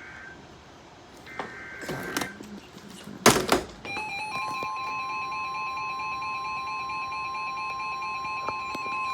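Weather radio alert tones: after a few faint clicks and a loud short thump about three seconds in, a steady electronic alarm tone starts about four seconds in with a rapidly pulsing tone alongside it, the warning alarm that heralds a new weather alert.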